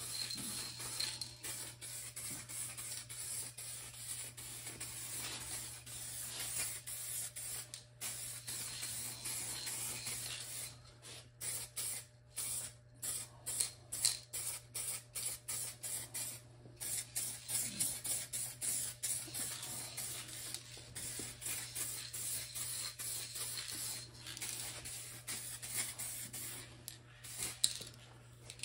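Handheld spray can spraying acrylic enamel paint onto a truck cab corner: a hiss in longer passes at first, then many short on-off bursts.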